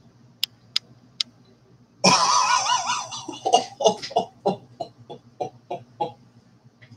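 A few sharp clicks, then about two seconds in a sudden loud breathy exclamation, followed by a run of short laughing breaths: a person laughing in stunned disbelief.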